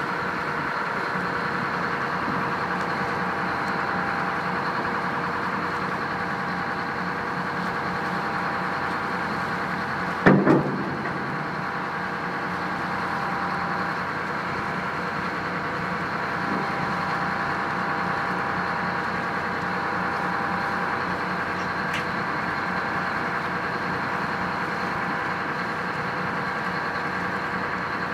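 Tugboat's diesel engine running with a steady drone. A sharp double knock stands out about ten seconds in.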